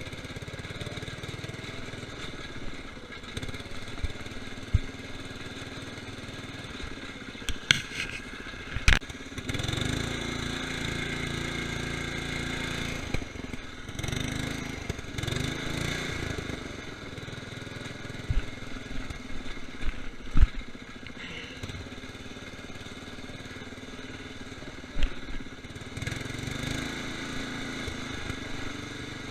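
Murray lawn tractor's 12.5 hp Briggs & Stratton engine running steadily, getting louder for a stretch in the middle, with occasional sharp knocks and clatters.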